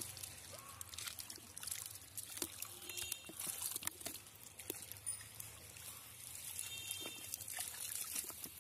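Water trickling and dripping around a fishing net pulled onto a muddy pond bank, with small irregular splashes and wet slaps from the landed tilapia flapping in the mesh.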